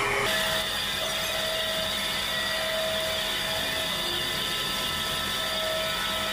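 Metal lathe running steadily, a machine whine with several held tones over a rough mechanical noise. Its sound shifts abruptly just after the start.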